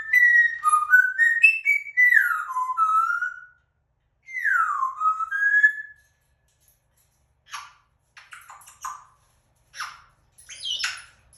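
African grey parrot whistling a quick run of short notes that step up and down in pitch, then one longer whistle that falls and rises again. It is followed by short, rough chirps and clicks over the last few seconds.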